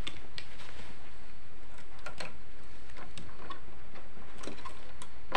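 Scattered light clicks and taps of small plastic and metal parts being handled as a CRT deflection yoke and its wiring are fitted onto the picture-tube neck, at uneven intervals over a steady low hum.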